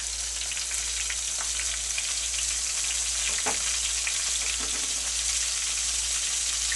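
Battered white oyster mushroom tempura deep-frying in hot cooking oil in a pan: a steady sizzle with scattered crackles and pops, one louder pop about halfway through.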